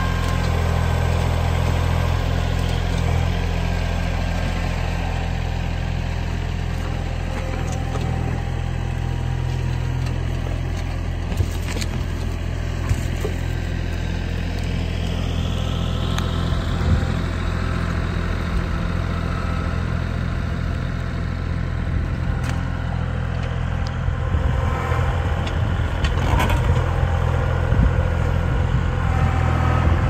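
Kubota L3901 compact tractor's diesel engine running steadily, with a few short clunks from the tractor working, more of them near the end.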